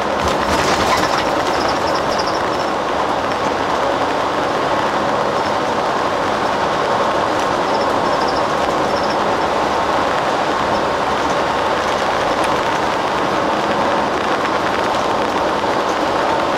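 Steady drone of a coach's engine and tyres heard from inside the cabin while the limousine bus drives along, with faint light rattles early on and again about eight seconds in.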